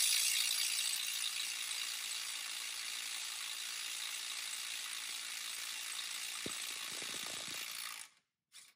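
DeWalt DCF921 ATOMIC 20V half-inch brushless impact wrench hammering continuously on a nut torqued to about 450 foot-pounds, a steady rattling hammer. It gets quieter over the first couple of seconds, then holds steady until it cuts off abruptly about eight seconds in.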